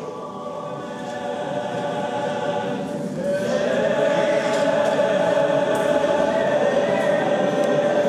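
Choir singing in long held notes, growing louder about three seconds in.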